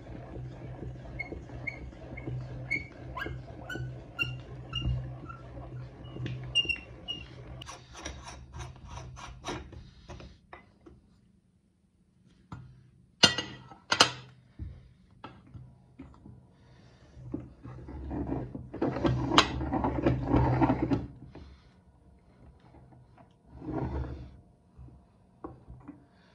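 Hand-cranked cast-metal meat grinder being turned as it pushes out chocolate, with short high squeaks about two to three a second. After a pause come two sharp clicks of the metal parts being handled, then a few seconds of rubbing and scraping as chocolate is cleaned out of the grinder.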